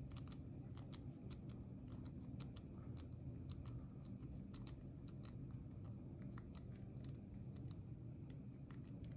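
Faint, irregular small clicks as a T10 screwdriver bit turns the pivot screw out of a Demko AD20 folding knife, a screw held with blue Loctite.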